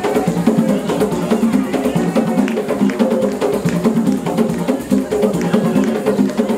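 African drum ensemble playing a fast, driving rhythm for dancing, with many sharp strikes layered over a steady pulse.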